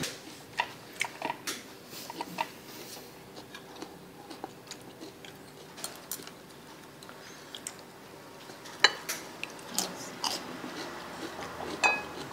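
Close-up eating sounds: biting and chewing, with scattered sharp clicks of cutlery and dishes. The two loudest clicks come about nine and twelve seconds in.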